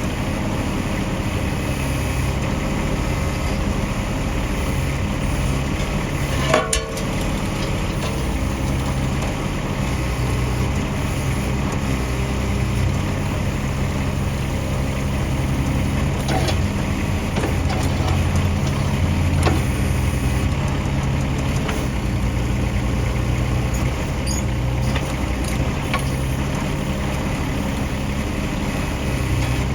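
Bobcat MT100 mini track loader's engine running steadily, its low hum swelling and easing as the M06 backhoe attachment is worked. A single sharp knock sounds about six and a half seconds in.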